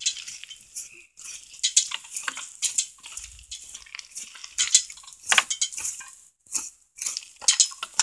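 Skinning knife slicing the hide away from a hanging lamb carcass: an irregular series of short scraping strokes.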